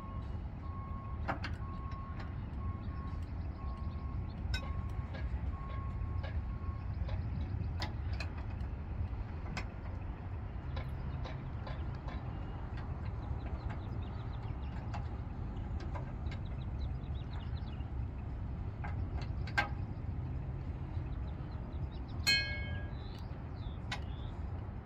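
Fire ladder truck's engine running with a steady low hum. A warning alarm beeps a little more than once a second, stopping about seven seconds in. Scattered light clicks and clanks and a brief squeak come near the end.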